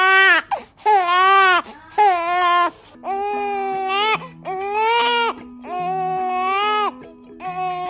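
Newborn babies crying: three quick, sharp wails from one infant, then, about three seconds in, another newborn crying in longer wails of about a second each with short breaths between.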